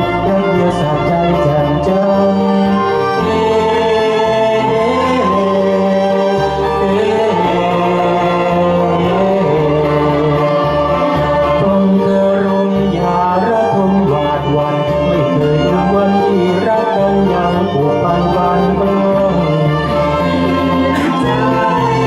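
A man and a woman singing a Thai duet into microphones, taking turns, with a violin playing along over accompaniment with a steady bass line.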